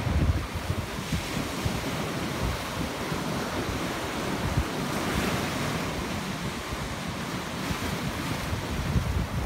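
Ocean surf breaking and washing over a rock jetty: a continuous rush of water that swells near the middle, with wind buffeting the microphone underneath.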